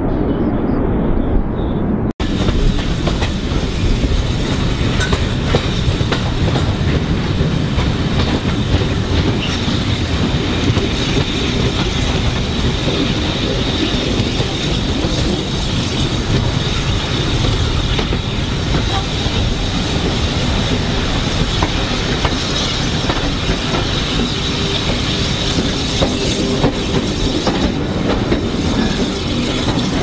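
British Rail Class 25 diesel locomotive D7659 running into the shed yard, its Sulzer diesel engine working steadily under the clatter of the wheels on the rails. The sound starts abruptly about two seconds in.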